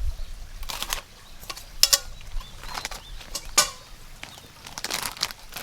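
A handful of short rustling, crackling handling noises, about five spread over the few seconds, over a faint low rumble at the start.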